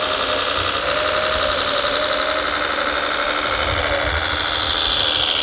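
Radio-controlled MAN tipper truck driving over dirt: a steady electric motor and gearbox whine with an engine-like running sound, the whine dropping in pitch near the end as it slows.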